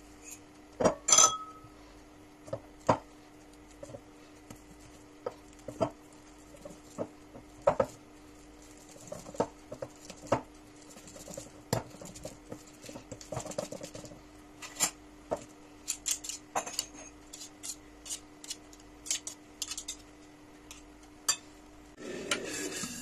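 Metal fork clinking and knocking against a dish in irregular taps, mashing a peeled banana; the loudest is a ringing clink about a second in. A faint steady hum runs underneath, and a short rushing noise comes near the end.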